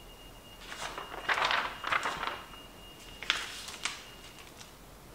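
Sheets of drawing paper and tattoo stencil paper rustling as they are lifted and slid across a light board, with two sharp taps about three seconds in.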